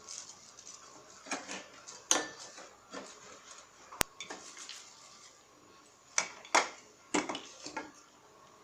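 Sharp metallic clinks and taps, about seven spread irregularly, as a screwdriver and small metal parts are worked on a sewing machine to remove a part.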